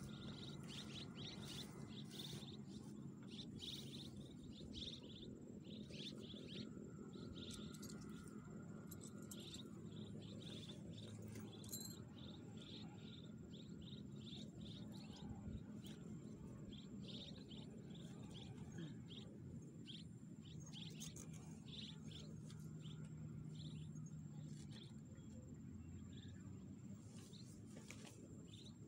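Faint outdoor ambience of small chirps repeating throughout, with a thin steady high tone and a low hum underneath.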